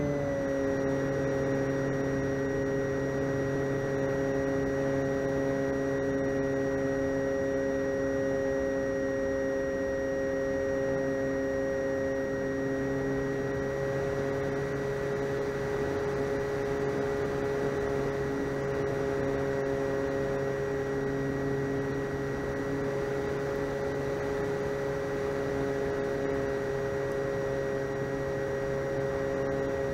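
Electric motor and propeller of an RC model plane heard from the plane's own onboard microphone: a steady hum-whine with an airflow hiss. It steps down slightly in pitch right at the start, then holds one even pitch throughout, the model cruising at part throttle.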